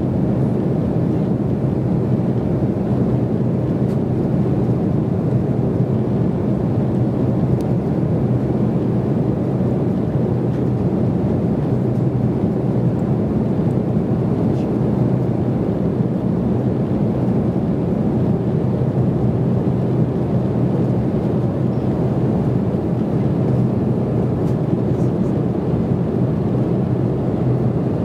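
Steady cabin noise inside an Embraer E190 jet airliner in flight: its two GE CF34-10E turbofan engines and the rushing airflow blend into an even rumble with a low steady hum.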